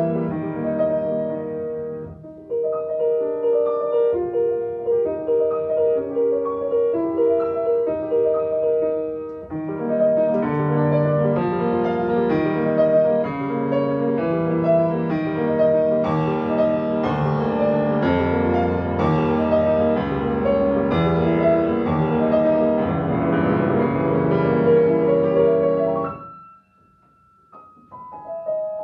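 Grand piano played solo: repeated mid-range notes over moving chords, growing fuller with deep bass notes from about ten seconds in. Near the end the playing breaks off abruptly, leaving one high note ringing, then a few soft notes return.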